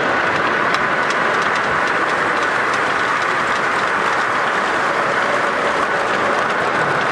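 O-gauge model freight train running past on the layout, its wheels clicking irregularly over the rail joints.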